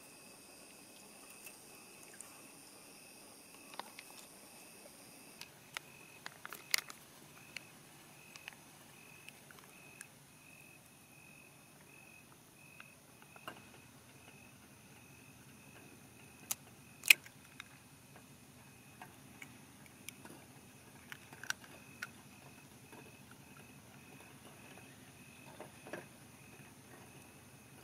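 Scattered light clicks and taps, the sharpest about 17 seconds in, over a faint high tone that pulses evenly.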